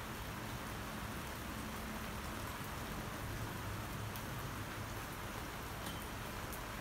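Rain falling steadily, an even hiss with a few faint drop ticks now and then.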